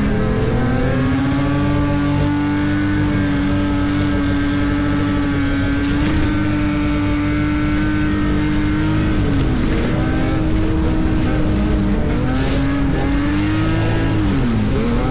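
Drift car's engine heard from inside the cabin while sliding on ice. It holds a steady high pitch for several seconds, then drops and wavers as the throttle is worked, and rises again before falling near the end.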